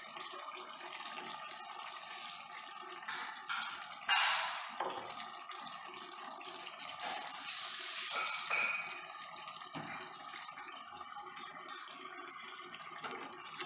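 Chicken masala simmering in an open aluminium pressure cooker on the stove, a steady wet bubbling. In the first few seconds there are knocks and scrapes as ground coconut-herb paste is tipped in from a steel mixer jar, the sharpest about four seconds in.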